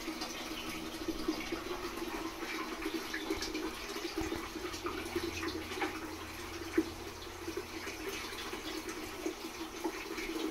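Aquarium water trickling and splashing steadily, with scattered small drip-like ticks and one sharper tick about two-thirds of the way through.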